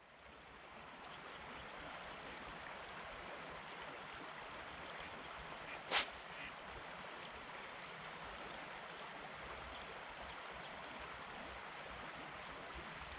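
Steady rushing of flowing river water, fading in over the first second or two. One sharp click stands out about six seconds in.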